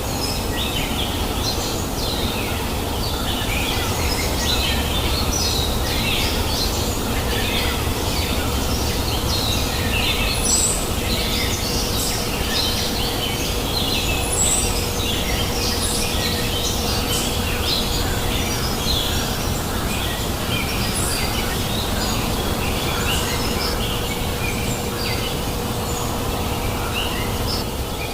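Many small birds chirping and twittering in quick, overlapping short calls over the steady rush of a babbling river.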